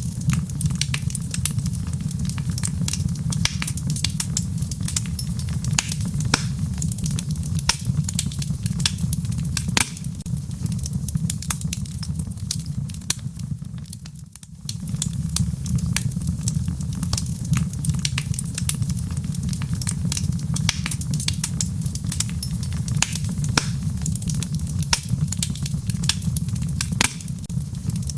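Wood fire crackling in a fireplace: frequent sharp snaps and pops over a steady low rumble, dipping briefly quieter about halfway through.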